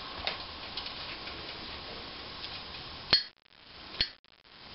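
Light clinks of cutlery and dishes over a steady low hiss, then two sharp clicks about a second apart, each followed by a sudden drop to near silence.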